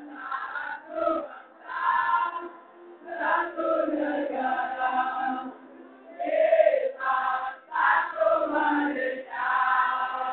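A crowd of students singing together as a group, in phrases separated by short breaks.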